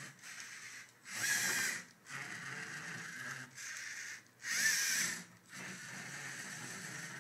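Lego NXT 2.0 robot's servo motors and plastic gears whirring as it drives and turns in stop-and-go steps, with two louder whirring bursts about a second in and about four and a half seconds in.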